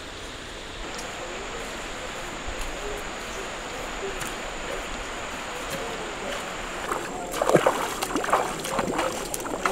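Shallow river water running steadily over stones, then irregular splashing from bare feet wading into the water over the last few seconds.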